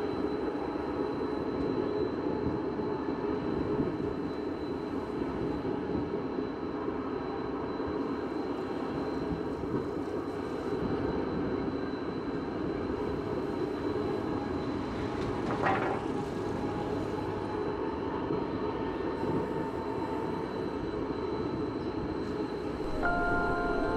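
Stadler Variobahn light rail tram running along its track, a steady rolling rumble with a faint high whine over it. A brief sharp sound comes about two-thirds of the way through, and a few steady tones begin just before the end.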